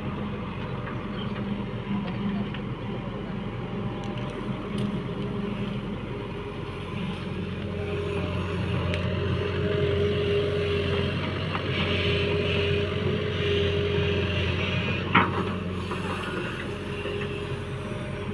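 Heavy diesel engine of earthmoving machinery running steadily, then working harder for several seconds in the middle as it comes under load, with a short sharp sound about fifteen seconds in.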